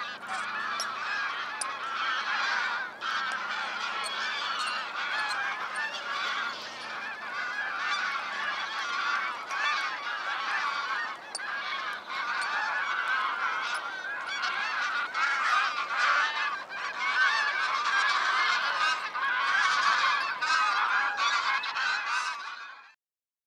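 Dense chorus of a large flock of waterbirds calling, many harsh, wavering calls overlapping at once without a break. It cuts off suddenly near the end.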